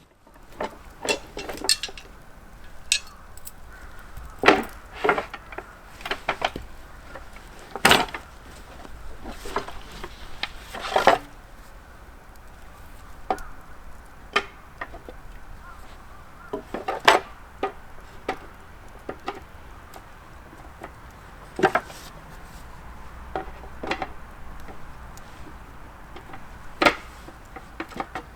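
Irregular wooden knocks and clacks, with some clatter like utensils or dishes being handled, a few strikes every couple of seconds.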